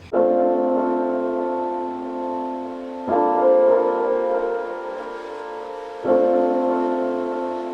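Background piano music: slow, sustained chords, with a new chord struck about every three seconds.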